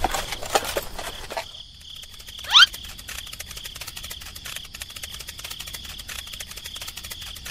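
Crickets chirring as a steady high trill. Rapid pattering clicks fill the first second and a half, and a single quick rising whistle sounds about two and a half seconds in.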